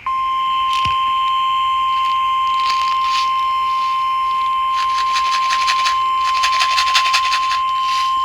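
NOAA Weather Radio 1050 Hz warning alarm tone: a single loud, steady, high-pitched tone that switches on abruptly, with crackling radio static that thickens in the second half. It signals that a warning message, here a special marine warning, is about to be read.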